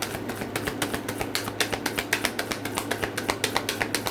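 Tarot cards being shuffled by hand: a quick run of sharp card clicks and snaps, several a second, over a steady low hum.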